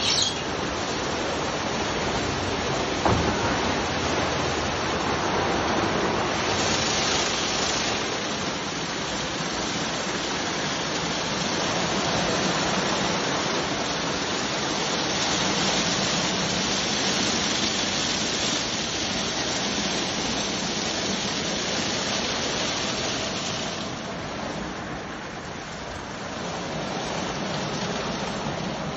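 WashTec roll-over car wash running: a steady hiss of water spraying and spinning brushes washing a car, over a low hum from the machine. The hiss grows brighter for a stretch in the middle, and there is a short knock about three seconds in.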